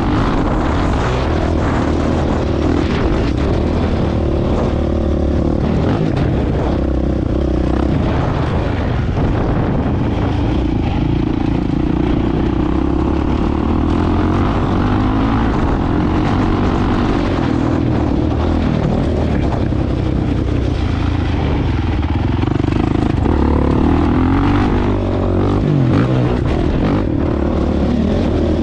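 Camera drone's propellers buzzing steadily, the pitch wavering slightly as it flies.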